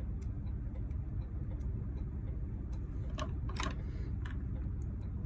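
Small metallic clicks of wafers being poked out of a Dodge ignition lock cylinder, with a few sharper clicks a little past halfway, over a steady low rumble.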